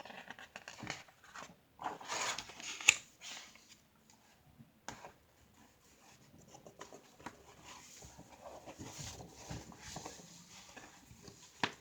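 Pages of a large picture book being turned and handled: paper rustling, loudest about two seconds in, with a few sharp clicks and a softer rustle later.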